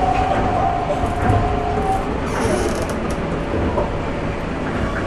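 Interior running sound of an Okinawa Urban Monorail (Yui Rail) 1000-series three-car train in motion: a steady rumble from the rubber tyres on the concrete guideway, with a steady whine that fades out about two seconds in.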